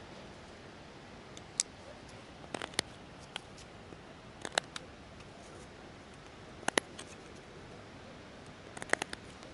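Sharp, dry clicks in small clusters of one to three, coming roughly every two seconds over a faint steady background hiss.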